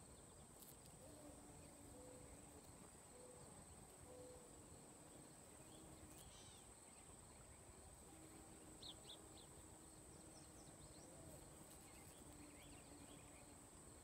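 Near silence: faint outdoor ambience with a steady high-pitched insect trill throughout and a few brief, faint bird chirps around the middle.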